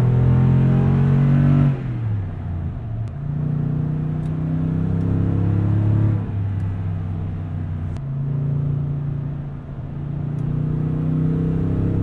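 Exhaust note of a 2020 Toyota Tundra TRD Pro's 5.7-litre V8, heard from inside the cab as the truck accelerates down the road. The engine pitch climbs, drops sharply about two seconds in, then builds again and holds steady.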